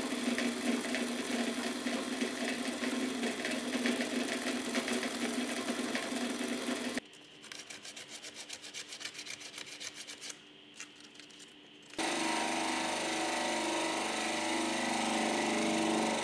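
Drill press boring wood with a Forstner bit: a steady motor hum with cutting noise. About seven seconds in it cuts to hand sanding, quick even strokes of sandpaper on wood. About five seconds later a woodworking machine's steady motor hum comes in suddenly.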